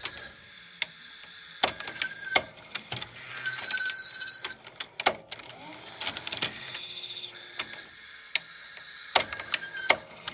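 Panasonic NV-FS200 VCR's tape mechanism clicking and clunking, with a loud high-pitched squeak lasting about a second. The same cycle of clicks and squeak repeats as the machine fails to play the cassette.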